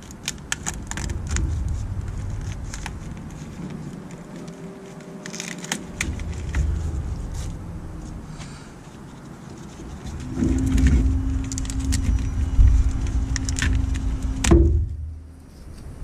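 Clicks and rattles of wiring, connectors and plastic split loom being handled in a truck's engine bay, over an uneven low rumble. About ten seconds in a steady hum joins, and near the end it cuts off abruptly with a sharp click.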